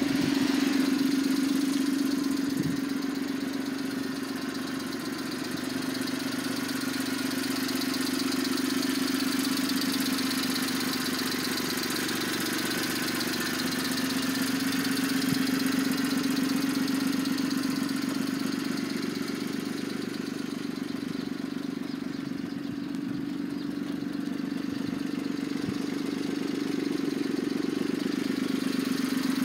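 1994 Suzuki Carry kei truck's F6A three-cylinder engine idling steadily.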